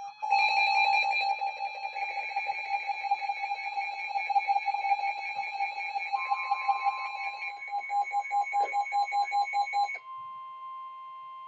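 Emergency Alert System alert tones: a loud electronic tone pulsing several times a second, which about ten seconds in drops to a quieter, steady two-tone signal, the attention signal that precedes a flash flood warning.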